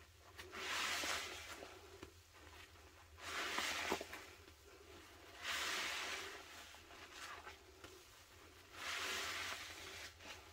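A porous sponge squeezed four times in thick pine-cleaner suds. Each squeeze is a wet, squelching squish of foam about a second long, a few seconds apart.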